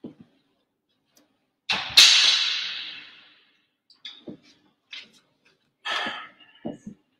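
A sharp clatter about two seconds in that echoes for over a second, then a few short knocks and shuffles, made by the priest moving and handling things at the altar.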